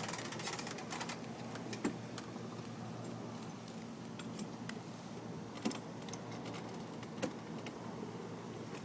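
Light metallic clicks and rattles from the truck-bed jet ski launch rig being worked, with three sharper knocks about two, five and a half and seven seconds in.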